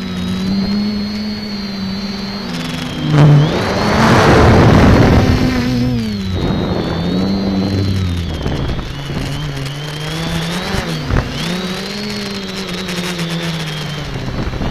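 Brushless motors and propellers of an X550 multicopter, heard from its onboard camera: a steady buzzing whine whose pitch rises and falls as the throttle changes. About three seconds in, a loud rushing noise swells over it for a few seconds.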